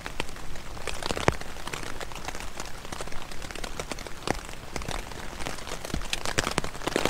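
Rain falling on the fabric of a Luxe Hexpeak tent, heard from inside: a steady dense patter with many louder single drop hits, one standing out about a second in.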